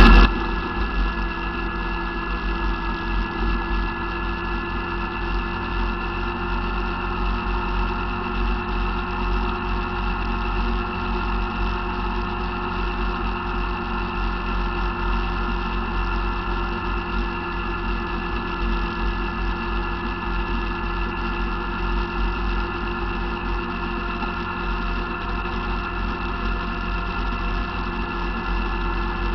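ATV engine running steadily at an even cruising speed, heard from the front rack of the moving quad, with a fluttering low rumble underneath.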